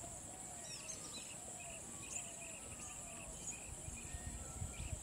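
Outdoor grassland ambience: a steady high-pitched insect chorus with short chirps repeating throughout, and a few faint bird whistles.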